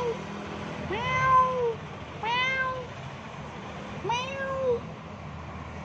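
White long-haired cat meowing three times, about a second and a half apart, each meow rising and then falling in pitch.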